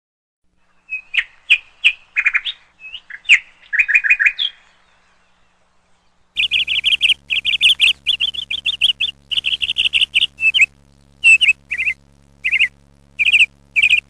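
Indian ringneck parakeets chirping: a few scattered short chirps, then from about six seconds in long runs of rapid, shrill chirps repeated in quick series. A faint steady low hum runs underneath the later chirping.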